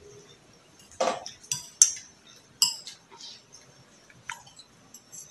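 Metal spoon clinking and scraping against a ceramic bowl while eating, a handful of separate sharp clinks, some with a short high ring.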